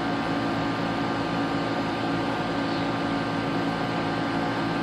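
Steady hum of running air-conditioning equipment, a constant machine drone with a few held tones.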